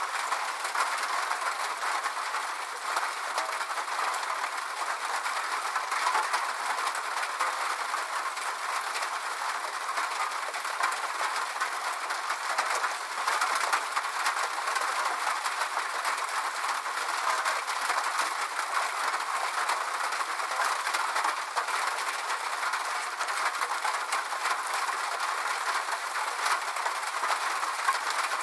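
Steady rain pattering on a corrugated sheet-metal roof: a dense, even crackle of many small drop impacts.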